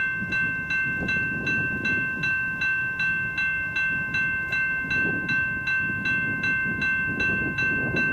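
Railroad grade-crossing warning bell ringing in quick, even strokes, a little under three a second, as the crossing is activated for an approaching train. A low rumbling noise sits underneath.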